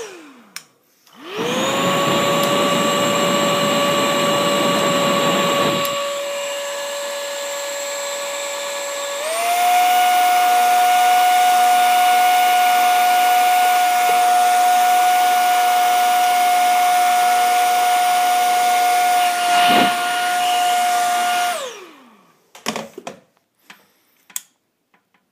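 Handheld hair dryer blowing on a computer power supply board, its fan motor making a steady whine over a rush of air. It winds down as it is switched off right at the start and spins back up about a second and a half in. The air rush drops about six seconds in, and the whine steps up to a higher speed around nine seconds in. Near the end it is switched off and winds down, followed by a few faint clicks.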